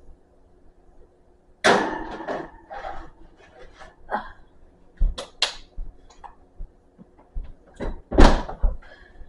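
Metal baking sheet clattering as it is pushed onto an oven rack, followed by scattered knocks and clicks, then a loud thud near the end as the oven door is shut.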